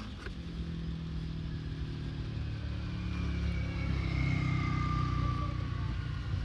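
A motor vehicle engine running, growing louder toward the middle, with a faint high whine sliding down in pitch as it swells.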